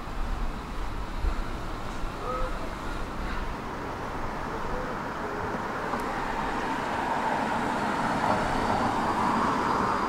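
Outdoor street ambience with traffic noise; the sound of a passing vehicle builds over the second half and is loudest near the end.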